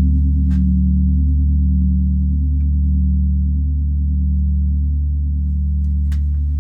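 Large gong, struck once just before, ringing on with a deep, sustained tone that fades only slowly, with a faint wavering beat in its low partials. A few faint small clicks sound over it.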